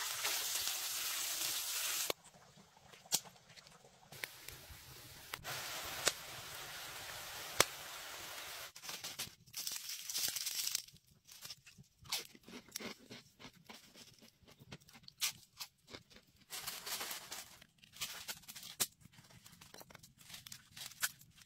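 Hot oil sizzling as food deep-fries in a cast-iron pot, in stretches broken by cuts. From about halfway, scattered crisp crunches and crackles as fried potato chips are handled and stacked.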